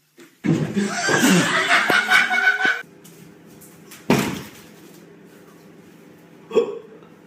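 A loud stretch of commotion for the first few seconds, then a single sharp thud about four seconds in as a cat runs head-first into a glass sliding door, over a steady low hum.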